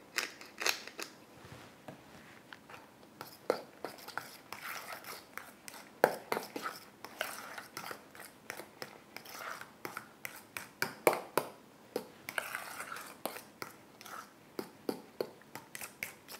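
A pepper mill grinding for about the first second, then a spoon stirring a thick cheese spread in a metal mixing bowl, scraping and knocking against the bowl in irregular sharp clicks.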